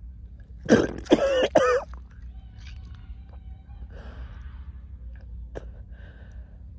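A person retching and vomiting: three loud strained heaves in quick succession about a second in, then quieter noises from the throat and mouth.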